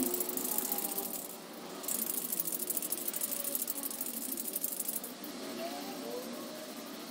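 A Krylon aerosol spray paint can being shaken, its mixing ball rattling fast inside the can to stir the paint. It rattles in two bouts with a short break about a second and a half in, and the shaking stops about five seconds in.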